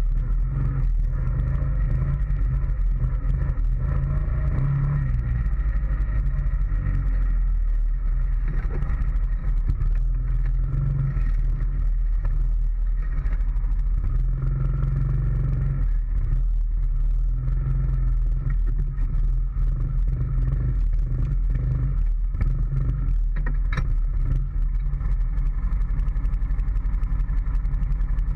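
2013 Honda Foreman ATV's single-cylinder engine running steadily while under way, heard close up from the front rack, with scattered clicks and rattles over it.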